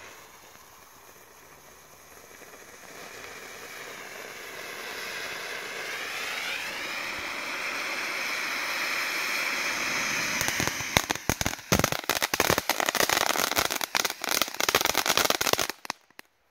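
Lesli Future Class category 1 firework fountain burning: a hiss that grows steadily louder. About ten seconds in it turns to dense crackling pops, which stop suddenly near the end.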